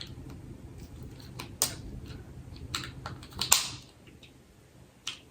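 Scattered sharp plastic clicks and taps as the parts of a neck-worn phone holder are handled and screwed together, with a short rustle about three and a half seconds in.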